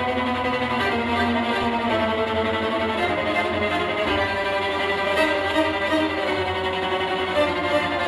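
Violin-led music played through Cube Audio Jazzon full-range speakers driven by a Tektron single-ended tube amplifier and recorded in the room. Partway through, the recording switches from the amplifier running on 300B tubes to the same passage on 2A3 tubes.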